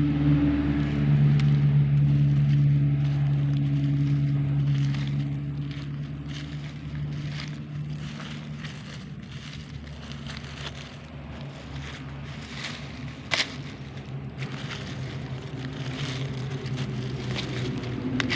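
Fingers scraping and crumbling loose soil, with faint crackles and ticks and one sharper tick, over a steady low hum that grows weaker through the first half.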